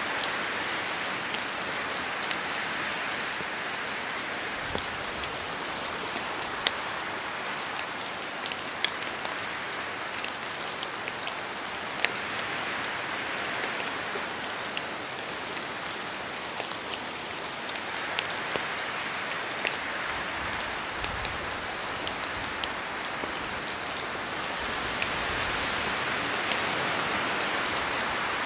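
Steady rain falling in a forest, a continuous hiss with many distinct drops ticking sharply on nearby surfaces. The hiss swells gently a few times, strongest near the end.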